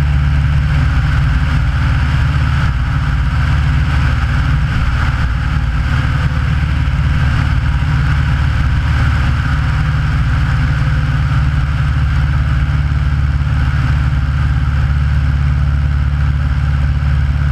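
Aeronca light plane's piston engine and propeller running steadily in level flight, a constant loud drone with no change in power.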